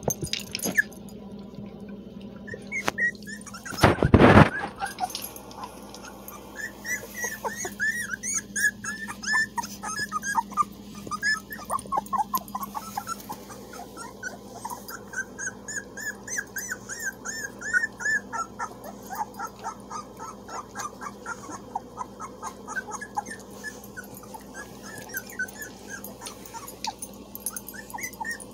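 Three-week-old puppies yipping and whimpering in a long run of short, high squeaks as they play. There is one loud thump about four seconds in.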